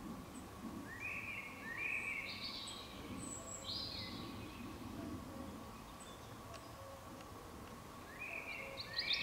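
A songbird singing short phrases of bright whistled notes: one about a second in, another around three to four seconds in, and a third near the end after a pause, over a low, steady background rumble.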